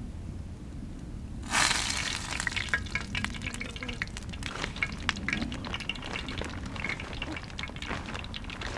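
Walleye fillets going into a hot frying pan: a sudden loud sizzle starts about a second and a half in, then settles into steady sizzling with sharp crackling pops of spitting fat.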